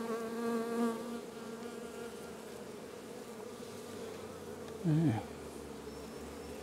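Honey bees buzzing over an open hive in a steady hum, fuller and louder for about the first second. A short murmur of a voice about five seconds in.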